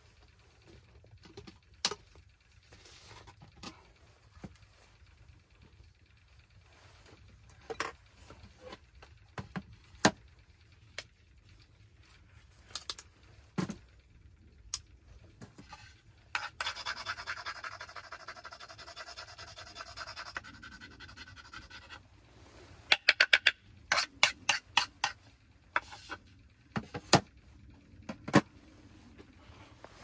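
Cooking gear being handled: scattered knocks and clicks of cups, board and utensils set down and picked up. About halfway through comes a steady scraping, grinding sound lasting about four seconds, and a few seconds later a quick run of sharp clicks.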